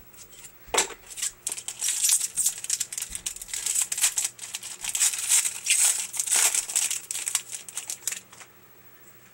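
Crinkling and rustling of a foil hockey-card pack wrapper and the cards being handled, in many quick crackles starting about a second in and stopping about a second before the end.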